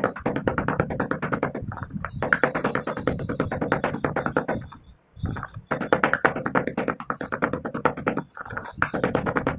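Stone pestle grinding and crushing dry, crumbly reddish-brown clay granules in a white stone mortar: rapid gritty crunching in runs of two to three seconds with short pauses between. Music plays along.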